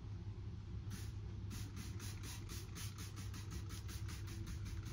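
Trigger spray bottle of soapy water being squeezed over and over: a quick run of short hissing squirts, about five or six a second, starting about a second in. A low steady hum sits underneath.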